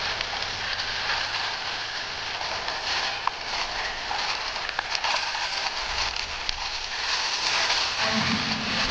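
Waterfall pouring into its pool, a steady rushing noise of falling water and spray with scattered small crackling clicks. Music comes in near the end.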